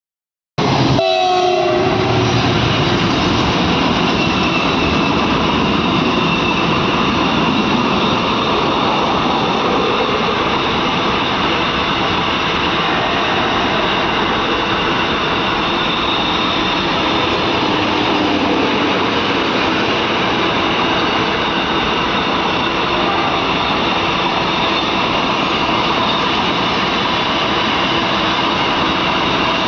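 Indian Railways WAG-9 electric locomotive hauling ICF coaches through a station at high speed without stopping. The horn sounds about a second in, then the train passes as a steady, loud noise of wheels on rail.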